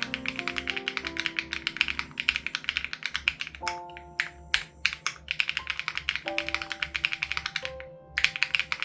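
Fast typing on an SPM AL87B mechanical keyboard with BSUN Raw switches and its dampening foam removed: a dense run of key clicks that thins to a few single strokes about three and a half seconds in, then picks up again, with a brief stop near the end. Background music with soft held notes and a steady low beat plays underneath.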